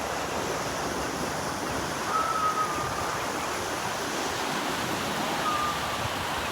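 Ocean surf washing steadily on the shore, an even rushing noise. Two short, thin whistle-like notes sound over it, about two seconds in and again near the end.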